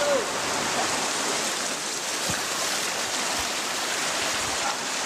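Rushing water of a rain-swollen river running fast over rocks, a steady dense hiss.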